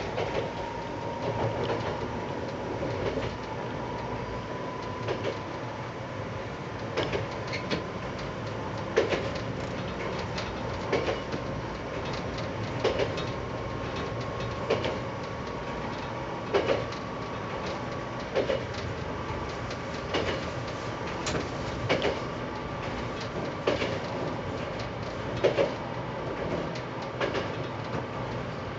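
Tsugaru 21 diesel railcar running on jointed track: wheels clack over the rail joints about every two seconds over a steady engine and running drone, with a faint whine slowly rising in pitch.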